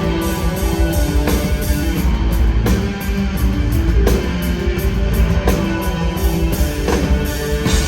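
Live alternative rock band playing loud, electric guitar over a steady beat of hits about twice a second.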